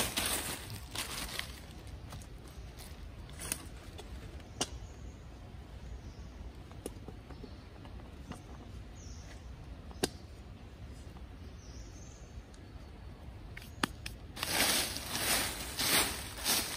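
Dry leaf litter and soil rustling and scraping as hands dig at the forest floor, with scattered small clicks and taps in between. Near the end, a run of footsteps crunching through dry leaves, about two a second.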